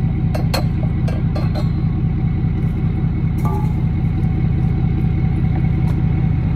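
A vehicle engine idling close by, a steady low, evenly pulsing drone, with a few sharp metal clinks in the first second and a half.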